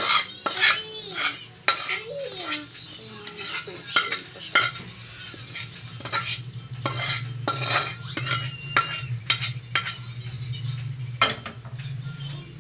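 Metal spoon scraping and clinking against a pan in repeated short strokes, about one or two a second, as garlic butter sauce is scooped out and spooned over cooked shrimp on a plate.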